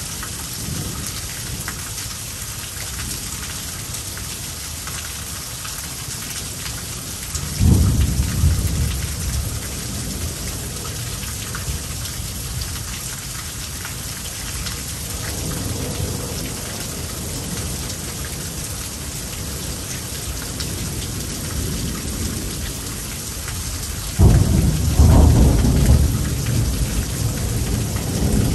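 Heavy rain falling steadily, with thunder breaking in as a sudden deep rumble about eight seconds in and again, longer and louder, near the end.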